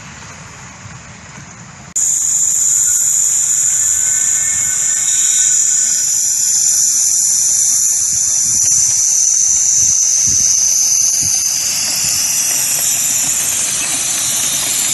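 Miniature ride-on steam locomotive hissing steam loudly and steadily; the hiss starts abruptly about two seconds in, after a quieter stretch.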